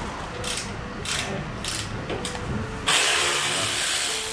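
Air ratchet running in four short bursts, then a longer, louder run of hissing near the end.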